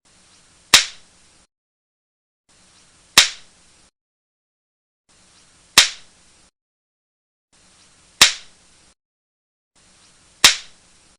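A sharp crack like a slap or whip crack, repeated five times about two and a half seconds apart, each dying away quickly.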